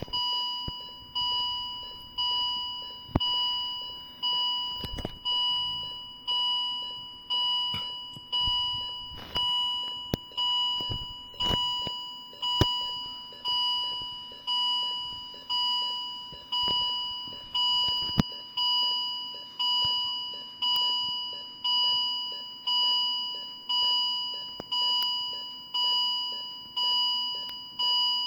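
Philips M3046A (M3 Viridia) patient monitor sounding an alarm: a tone beeping about once a second, each beep starting sharply and fading. A few sharp clicks fall in the first two-thirds.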